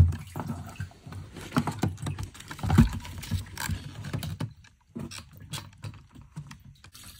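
Plastic fuel pump module of a 2007 Dodge Magnum clicking, knocking and scraping against the fuel tank opening as it is lifted out by hand. There is a sharp knock at the start and another about three seconds in.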